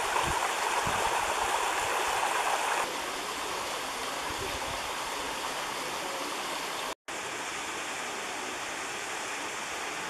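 Shallow mountain creek running over stones: a steady rushing and rippling of water. The level steps down a little about three seconds in, and the sound cuts out for an instant near seven seconds.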